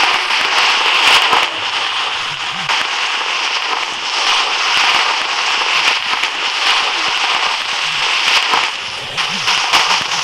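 Slime being squeezed and worked by hand: a dense, steady run of crackling and small pops.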